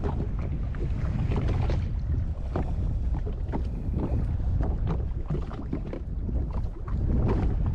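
Wind buffeting the microphone over water sounds at a Sea-Doo Fish Pro on open water, a steady low rumble with scattered irregular knocks and clatter.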